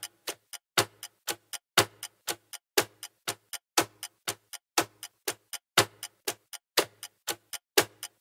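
Quiz countdown timer ticking like a clock: about four sharp ticks a second, every fourth one louder.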